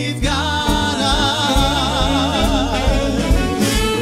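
Live big band playing swing, horns and rhythm section together, while a singer holds one long note with a wide vibrato through most of it.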